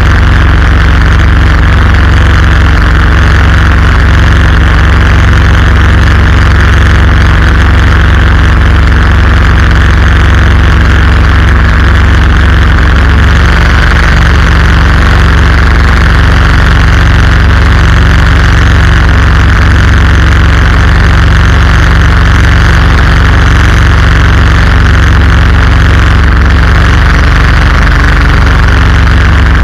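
Predator 212cc single-cylinder four-stroke engine running steadily and loudly at an unchanging speed, driving the canoe's inboard shaft and propeller while under way.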